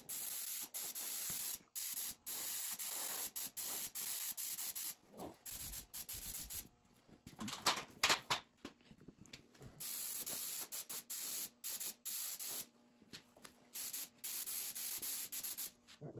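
Compressed-air paint spray gun hissing in long bursts as its trigger is pulled and released, spraying paint. A few louder knocks come about halfway through.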